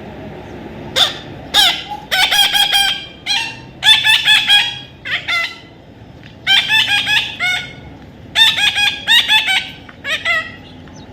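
A parrot calling: repeated harsh, pitched squawks that come in clusters, with short pauses between them.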